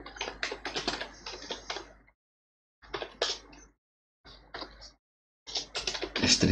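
Typing on a computer keyboard: quick runs of keystrokes coming in bursts, with a few short dead-silent breaks between them.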